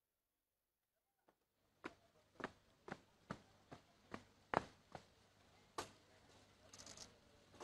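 Hard boot heels striking stone paving in a steady march, about two sharp steps a second, beginning after a second and a half of near silence; a short rustle follows near the end.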